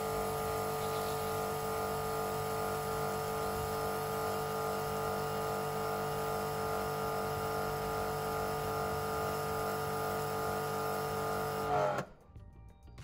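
Kärcher K5 Compact pressure washer's motor and pump running with a steady whine over the hiss of the spray, drawing detergent through its pickup tube with the lance on the soft setting. It stops abruptly near the end.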